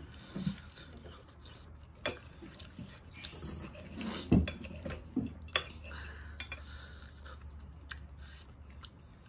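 Scattered clinks and knocks of tableware and cutlery, the loudest a sharp knock about four seconds in, over a faint steady low hum.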